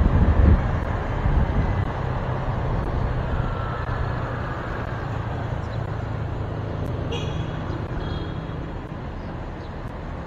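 Motorcycle riding in city traffic, with wind rumble on the microphone and engine and road noise, growing quieter as the bike slows to a stop at the curb. A brief high-pitched sound comes about seven seconds in.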